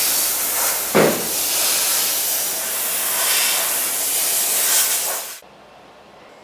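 Compressed air hissing steadily from a hand-held blow gun, blowing leftover blasting sand off a bare steel snowmobile tunnel before it is powder coated. There is a brief louder puff about a second in, and the air cuts off suddenly about five seconds in.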